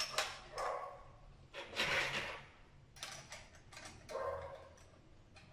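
Handling noise of a smart door lock's front panel and metal lever handle as the handle is moved to the other side and refitted: a few irregular clicks and scrapes, the loudest about two seconds in.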